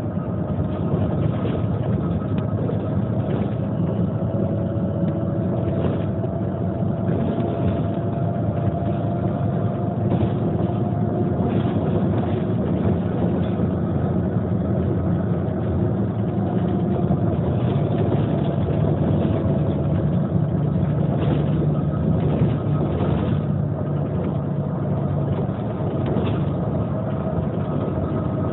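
Neoplan N 4416 city bus's diesel engine idling steadily: a low hum with a faint whine above it.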